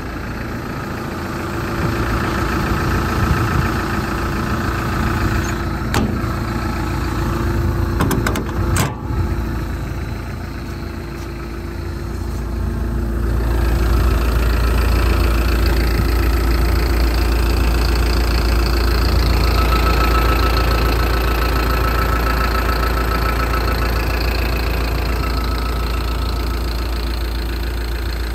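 Hyundai R170W-7A wheeled excavator's diesel engine idling steadily, growing louder and deeper about halfway through. A few brief sharp clicks come around a third of the way in.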